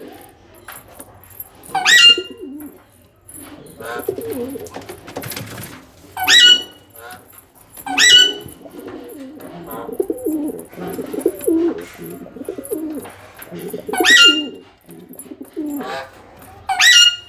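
A male domestic pigeon cooing again and again, a low rolling coo. Five short, sharp, high-pitched chirps, each dropping quickly in pitch, cut in over it and are louder than the cooing.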